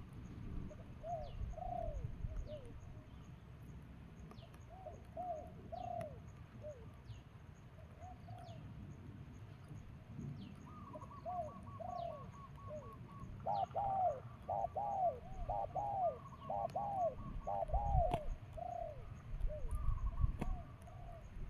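Doves cooing in short repeated groups of arching notes, busiest in the second half. A quick run of higher notes comes in just before the middle, with faint high chirps from small birds and low rumbling noise underneath.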